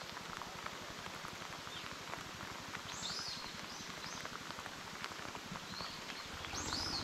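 Heavy rain falling on the reservoir surface, a steady hiss full of fine drop ticks. A bird calls a few times in short swooping notes, and a low rumble comes in near the end.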